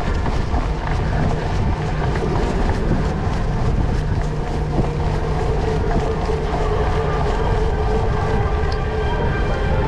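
Cyclocross bike rolling at speed, its tyres rumbling and the bike rattling over a rough dirt track and then brick paving, with a steady clatter of small knocks throughout.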